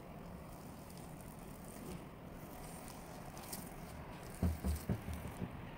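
Fingers poking and pressing risen bread dough in an aluminium pot: a quick run of soft, low thumps about three-quarters of the way through, over faint steady background noise.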